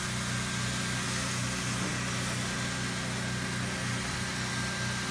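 BAK RoofOn R automatic hot-air roofing welder running as it drives itself around a pipe boot, welding the single-ply membrane: its hot-air blower gives a steady hiss over a low motor hum and a faint high whine.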